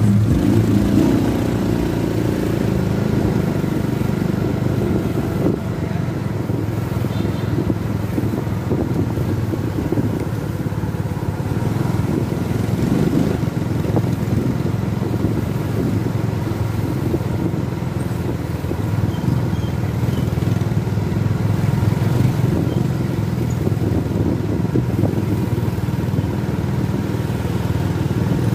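Motorcycle engine running steadily while riding along a road, heard from the rider's seat with wind noise on the microphone.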